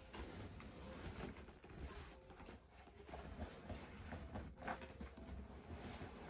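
Rustling and crinkling of a folded, deflated air mattress being pushed down into its cardboard box, with scattered soft bumps and scrapes of the cardboard.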